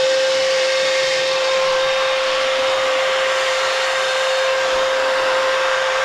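Vo.Temm 4-in-1 vacuum cleaner running steadily on a car seat, its motor giving a constant high whine over the hiss of air rushing through the extension tube.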